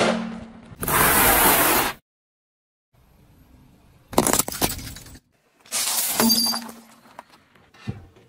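Car tyre crushing brittle things in turn: a long crunch as a wrapped lollipop breaks, a moment of silence, then two bursts of cracking plastic as Rubik's cubes give way under the wheel.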